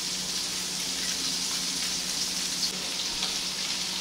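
Onions sizzling steadily in a frying pan, a constant hiss with a few faint crackles, over a steady low hum.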